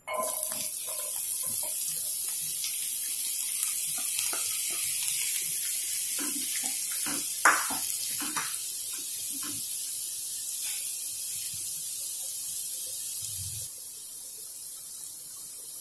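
Chopped onions dropped into hot oil in a frying pan, sizzling loudly at once and going on steadily, easing a little and dropping a step near the end. A few knocks sound over it, the loudest about seven and a half seconds in.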